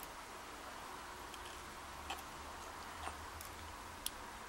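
A few faint, sharp clicks of the padlock's pin tumblers and tools being handled as the pins are taken out one by one. The loudest click comes near the end.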